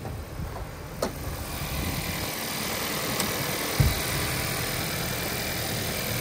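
Honda CR-V engine idling steadily under the open hood, heard close up. There is a sharp click about a second in and a dull thump just before four seconds.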